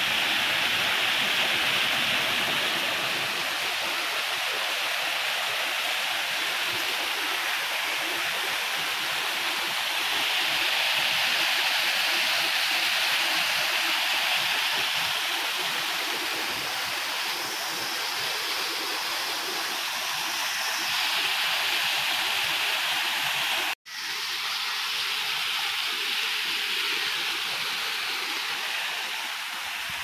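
Small waterfall splashing over rock into a shallow pool: a steady rushing of falling water, with a momentary break about three-quarters of the way through.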